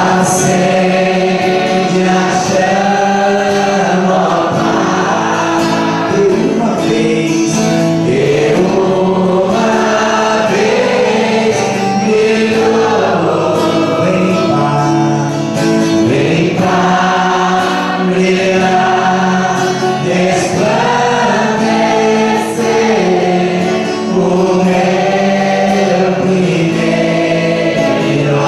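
Gospel worship song: voices singing together with a male lead on a microphone, over steady instrumental backing.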